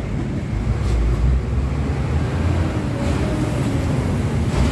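Low rumble of passing traffic and wind buffeting the phone's microphone.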